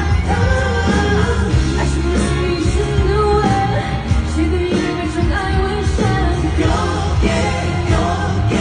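A woman singing into a microphone over a loud pop-rock backing track with heavy bass and drums.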